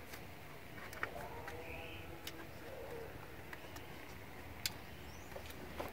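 Faint bird calls with a few sharp, light clicks scattered through.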